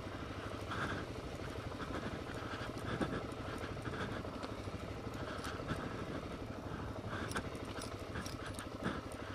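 Suzuki DR-Z400S single-cylinder four-stroke motorcycle engine running steadily while riding a dirt trail, with scattered sharp clicks over the engine.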